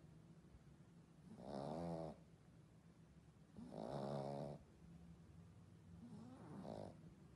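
Black pug snoring in its sleep: three rattly snores about two and a half seconds apart, the last one fainter.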